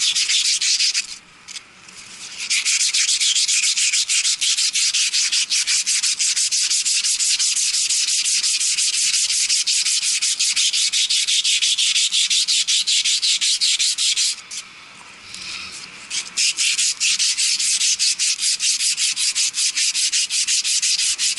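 Sandpaper rubbed by hand on metal in quick, even back-and-forth strokes, dressing a corner so the new shaft coupler slides on easily. The sanding pauses twice, once about a second in and again about two-thirds of the way through.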